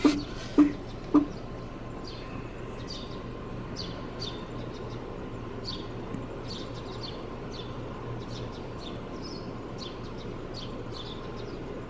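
Small birds chirping again and again in short, falling high chirps over a steady low hum. In the first second or so a few loud, short, low-pitched sounds come in quick succession.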